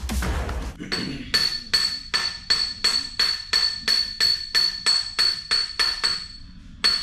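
A hammer striking a steel pin over and over, about two to three blows a second, each blow ringing bright and metallic: driving a boom pin out of a mini excavator. Music plays for the first second, and the blows pause briefly near the end before starting again.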